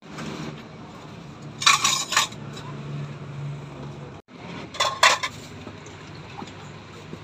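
Metal spoon clinking against serving bowls and containers: two short bursts of quick clinks, about two seconds in and again about five seconds in, over steady background noise.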